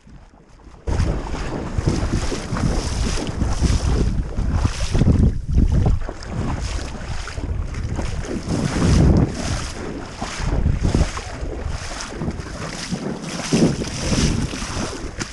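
A person wading through shallow river water, splashing with each stride at about two steps a second, starting suddenly about a second in, with heavy wind noise on the microphone.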